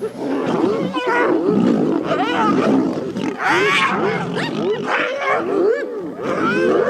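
Several wild animals calling and growling at once, a dense tangle of overlapping cries that rise and fall in pitch without a break.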